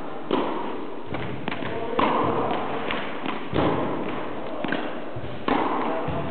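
Tennis ball hits during a rally: a sharp strike about every one and a half to two seconds, with fainter knocks between.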